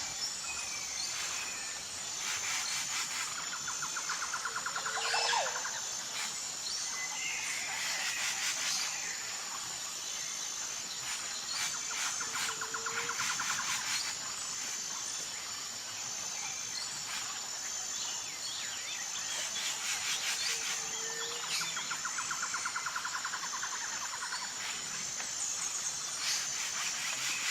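Forest ambience: a steady, high-pitched insect drone with birds chirping and calling over it. The same set of calls, including a short low note, comes back about every seven or eight seconds.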